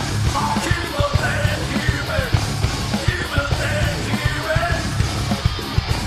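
Live industrial metal band playing loud: pounding drums, distorted guitar with gliding slide notes, and yelled vocals.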